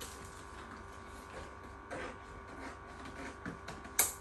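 A steady hum made of several even tones, with faint rustles in the middle and a sharp click near the end.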